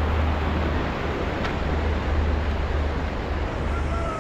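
Steady rush of a fast glacial-melt river, with a low wind rumble on the microphone.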